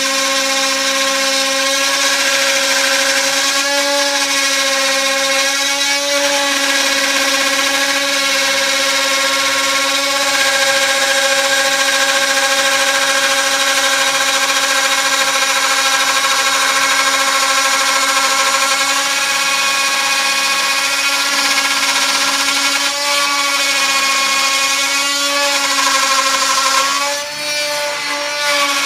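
Spindle of a TTA 3020 desktop CNC router milling wooden floorboard: a steady high whine over the cutting noise, its pitch dipping briefly a few times, most deeply near the end.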